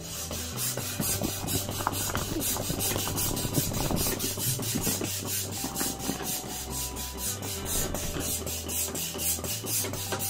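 Background music with a steady beat over a bass line that moves from note to note.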